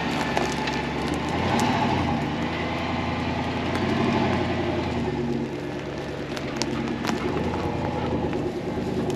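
Tractor's diesel engine running, its pitch rising and falling a couple of times as it is throttled up and down.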